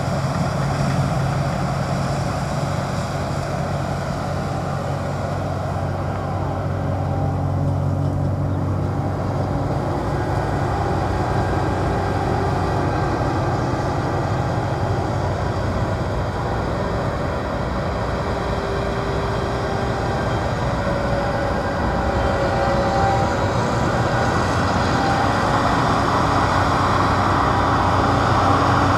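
Massey Ferguson Cerea 7278 combine harvester running steadily while threshing. Its engine and threshing machinery make a continuous low drone that grows a little louder near the end.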